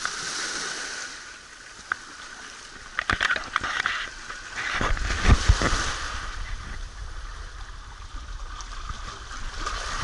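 Shallow harbour water sloshing and splashing against a sandstone seawall and a wrecked hull. A few sharp splashes come about three seconds in, and a low rumble joins from about five seconds in.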